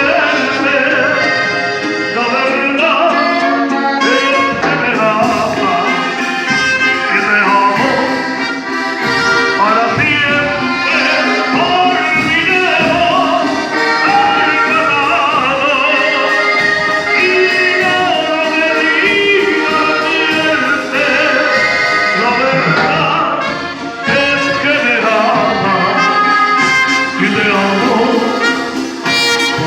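A band playing a song: continuous music with a steady beat.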